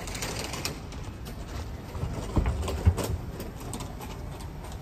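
City street ambience heard while walking along a pavement: a steady background of distant traffic and scattered light clicks. Two dull low thumps come about halfway through, the loudest sounds.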